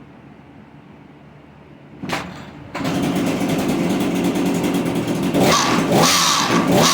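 Echo PPT2620H pole saw's small two-stroke engine being started: it fires briefly about two seconds in, catches about a second later and runs loud, revved up twice near the end.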